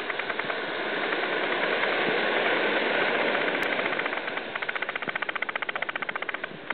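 Surf washing onto a sandy beach: a steady hiss of breaking waves that swells over the first few seconds, with a fast fine crackle through the second half.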